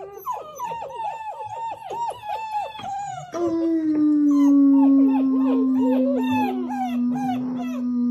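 A litter of black German shepherd puppies howling together, starting with a quick run of short falling yelps. About three seconds in, a deeper, steady howl sets in and becomes the loudest sound, with the pups' higher, wavering howls over it.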